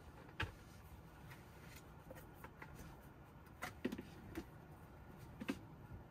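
Light knocks and clicks as a tablet and small items are handled and set down: one sharp knock about half a second in, a cluster of taps around four seconds and one more near the end, over a faint steady low hum.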